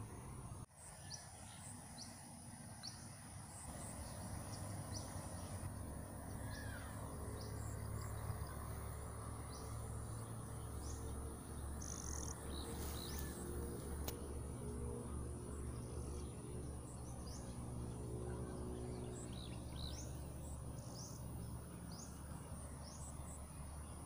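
Steady high-pitched insect drone with short bird chirps scattered throughout, over a low hum.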